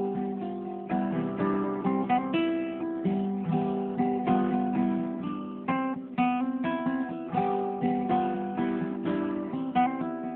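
Acoustic guitar music: a continuous run of plucked notes and strummed chords, each quickly fading.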